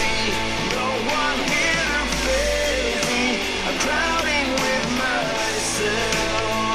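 A rock song with a singing voice and guitars, played through the Baseus V1 portable Bluetooth speaker as a sound test.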